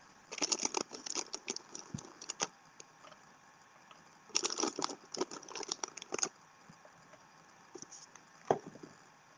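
Two bursts of rapid rattling and clicking, each about two seconds long with a pause between, followed by a single sharp knock near the end.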